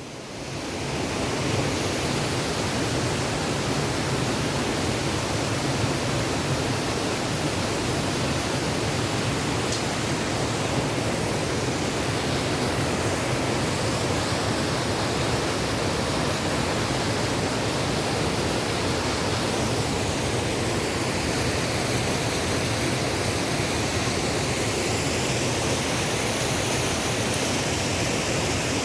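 Waterfall: a steady, even rush of falling water that swells up within the first second or two and then holds constant.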